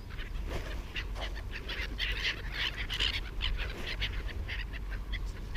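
A flock of seagulls calling, many short cries overlapping one another without pause.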